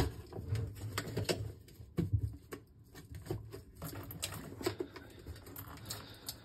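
A white plastic bottle trap under a basin being unscrewed and worked loose by hand: irregular small clicks, knocks and rubbing of plastic nuts and pipe, with a sharper click right at the start.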